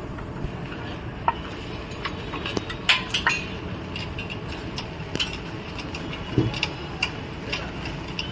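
Scattered light metallic clinks and taps from hand work on a Royal Enfield engine's magneto side cover as it is fitted, over a steady low hum.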